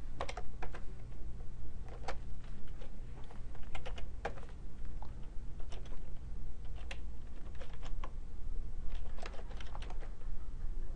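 Typing on a computer keyboard: irregular keystrokes in short runs with brief pauses between them, as shell commands are entered.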